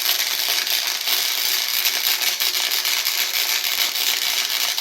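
Electric arc welder crackling steadily as the arc lays a weld bead, a dense continuous sizzle of fast clicks.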